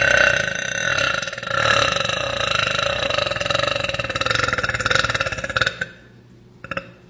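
A woman's long, drawn-out burp at a fairly steady pitch, stopping about six seconds in.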